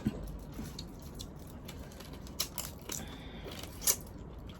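Boiled crab shell being cracked and picked apart by hand and eaten, giving scattered small clicks and crunches. A few sharper cracks come about halfway through and near the end.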